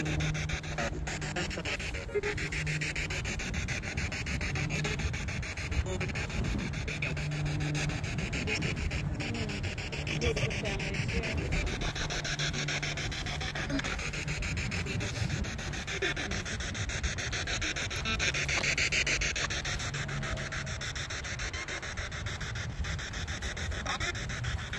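Steady crackling static from a ghost-hunting spirit box sweeping rapidly through radio stations, with stretches of faint hum.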